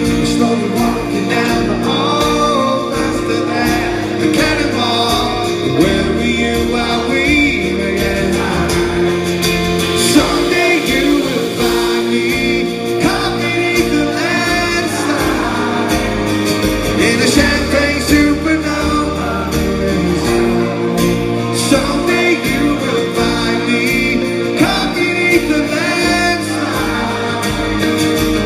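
A live rock band playing, with singing over the guitars and a steady beat.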